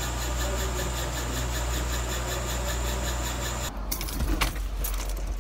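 A steady mechanical hum with a thin high whine, which cuts off abruptly about two-thirds of the way through. After it come rustling and a few knocks of someone moving about inside a car.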